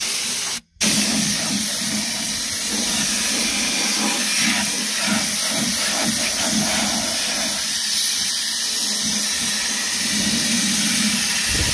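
Compressed-air spray gun hissing steadily as it blasts diesel fuel into a tractor's steering-box housing to wash it out. The hiss cuts out briefly just under a second in, then runs on without a break.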